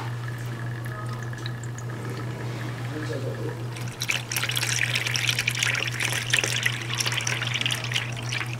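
Dongdongju, Korean rice wine, poured into a cup or bowl: a splashing pour starts about four seconds in and lasts about four seconds.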